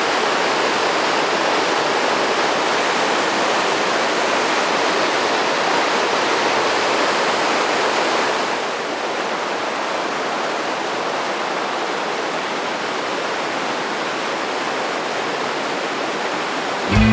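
Waterfall rushing steadily, an even hiss of falling water. It drops a little in level about eight and a half seconds in.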